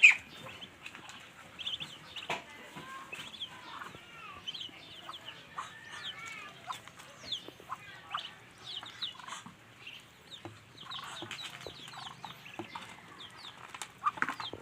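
A group of ducklings peeping busily, with many short, high chirps and scattered small clicks as they peck at food. A sharp knock comes right at the start.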